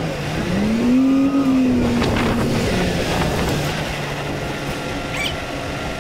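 Crane engine revving up about a second in, then dropping back to a lower, steady speed while the crane lifts a steel beam.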